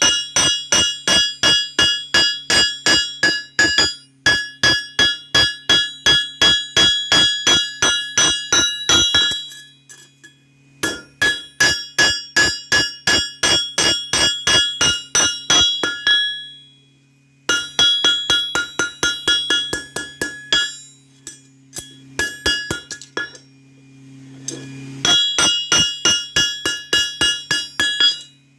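Hammer blows on steel over an anvil while forging a knife blade, about four a second in long runs with short breaks, each strike ringing with a bright metallic tone. A steady low hum runs underneath.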